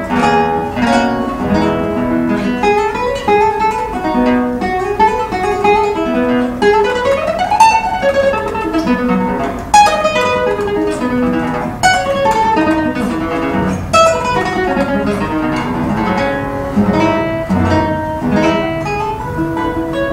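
Solo classical guitar with nylon strings, played with quick plucked melody over bass notes. A run of notes climbs and falls back near the middle, and several sharp strummed chords cut in during the second half.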